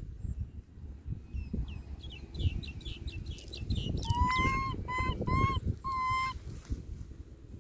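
Animal calls: a quick run of high chirps, then four short calls held on one pitch, over a steady low rumble.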